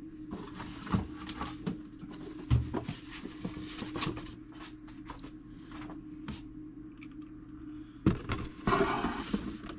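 Handling noises on a workbench: scattered knocks, clunks and rustling as a box and a fusee clock movement are moved into place, with a busier cluster of clatter near the end. A steady low hum runs underneath.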